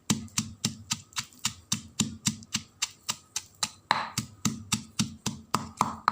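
Pestle pounding curry paste in a mortar: a steady run of sharp strikes, about three and a half a second, each a dull thud with a click.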